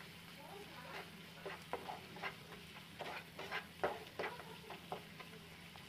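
A spatula stirring and scraping an onion masala round a non-stick frying pan, short scrapes about two a second, over a faint frying sizzle.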